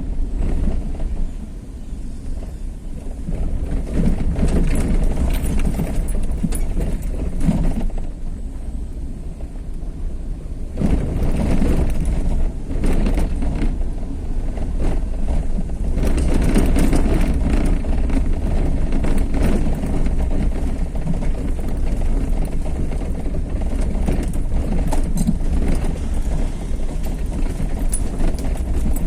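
Steady low rumble of a vehicle travelling along a road, engine and road noise together, easing off a little twice.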